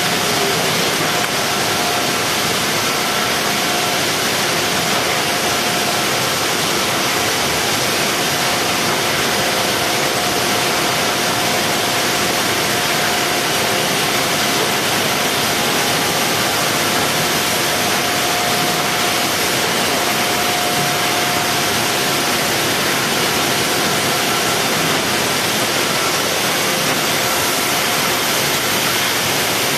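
Steady, even machinery noise of a factory box-palletizing line, like a continuous rush of air, with a faint steady tone through most of it and no distinct strokes or clunks.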